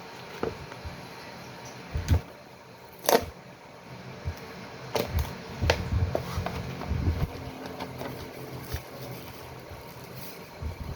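Handling noises while a mobile phone is unboxed: irregular clicks, knocks and taps of the box and packaging, the loudest about two and three seconds in, with low rubbing and thudding in the middle.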